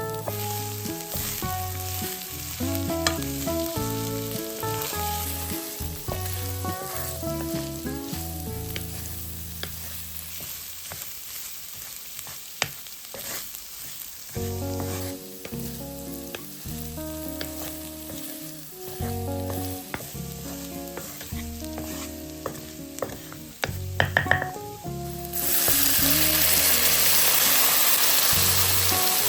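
Background music with a few clicks of a utensil against a pan. About 25 seconds in, loud frying starts suddenly and continues steadily, as food goes into a hot, oiled pan.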